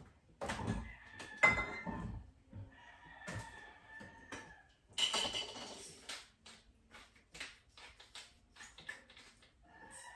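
Kitchen clatter of a frying pan and utensils at a gas stove: a string of irregular clanks, taps and scrapes as food is handled in the pan.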